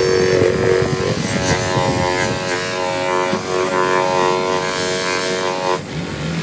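Electric bench buffer running, its foam polishing pad spinning against a plastic headlight lens: a steady mechanical hum with rubbing noise, the hum cutting off abruptly near the end.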